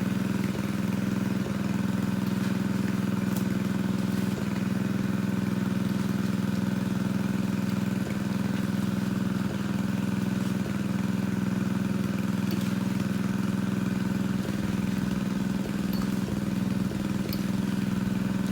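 Engine of a pond-draining water pump running steadily at a constant speed, an even hum with no change in pitch.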